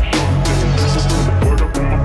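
Electronic background music with a heavy bass line and a steady beat.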